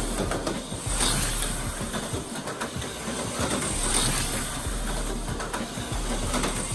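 HO slot car running laps on a plastic slot car track, its small electric motor whirring steadily and swelling louder a few times as it comes past.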